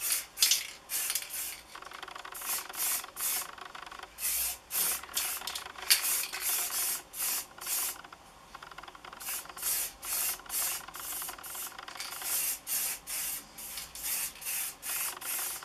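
Aerosol can of black spray paint hissing in short spurts, about two a second, with a couple of brief pauses. The can is running out.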